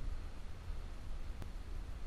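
Low, uneven outdoor rumble with no voice, and a single sharp click about one and a half seconds in.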